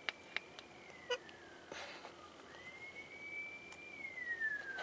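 A faint distant siren wailing: a tone that rises quickly, holds, then falls slowly, twice over. Light clicks of small plastic paint cups being handled.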